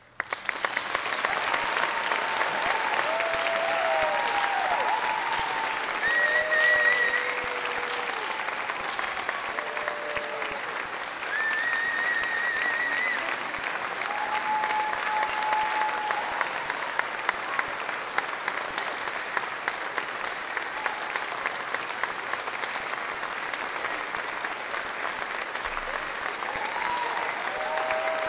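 Audience applause that breaks out suddenly and keeps going, with a few voices cheering and whooping over the clapping.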